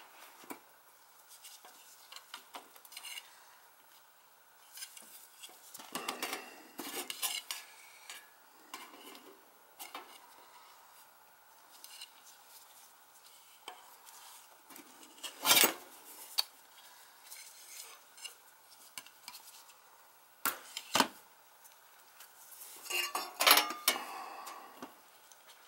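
Thin galvanized sheet-metal vent pipe and water-heater draft hood being handled and fitted together: scattered light metallic clinks and taps, with a few louder clanks in the second half.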